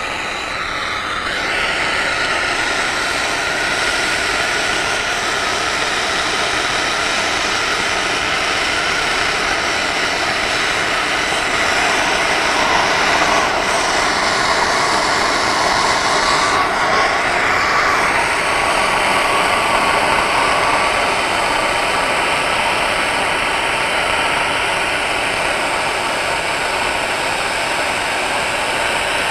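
Handheld gas torch burning with a steady hiss, its flame played on a pump's brass shaft sleeve to heat it and loosen the thread-locker beneath.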